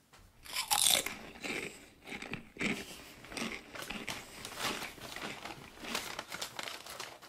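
Arby's curly fries crunching as they are bitten and chewed up close, a run of irregular crisp crunches, loudest about a second in. The paper takeout bag rustles as a hand reaches in for more.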